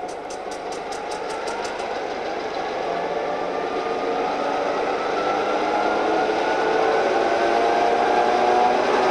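SNCB class 62 diesel locomotive approaching and growing steadily louder, its two-stroke diesel engine note rising slightly in pitch. A fast, regular high ticking runs through the first two seconds, then stops.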